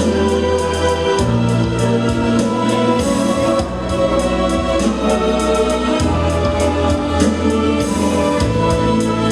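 Instrumental music: sustained organ-like keyboard chords over a bass line that changes note every second or two, with a steady beat of light percussion ticks.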